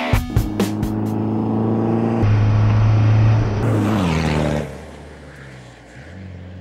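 A car engine held at steady high revs, its pitch falling sharply about four seconds in as it passes by, then a quieter steady engine drone.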